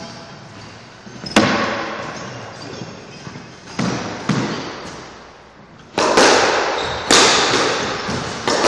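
Squash ball hit by rackets and struck against the court walls: about six sharp cracks, each ringing off in the court's echo, the loudest two about six and seven seconds in.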